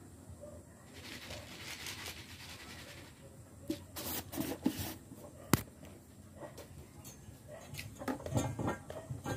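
Light clicks and knocks of a clear plastic container of rice being handled, with one sharp click about halfway through and a short rattle near the end.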